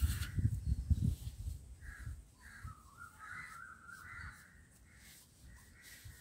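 Crows cawing repeatedly, with a longer run of harsh calls about three to four seconds in. Low knocks and rumble in the first second and a half.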